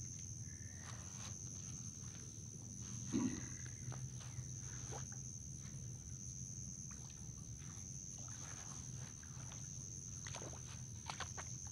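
Steady high-pitched drone of insects, over scattered splashes of a hooked catfish thrashing at the surface and rustles in the grass as it is played and netted. A short thump about three seconds in is the loudest sound.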